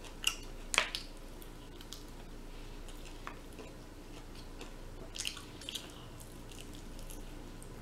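Close-up eating sounds as roasted chicken is pulled apart by hand and chewed: wet squishy smacks and clicks. Two loud ones come about half a second apart in the first second, and a short cluster comes about five seconds in.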